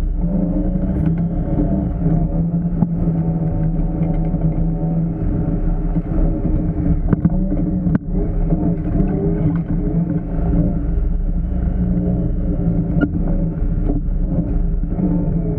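Side-by-side UTV engine, a Honda Pioneer 1000, running under load on an off-road trail, its pitch rising and falling with the throttle. A few sharp knocks from the ride come through over it.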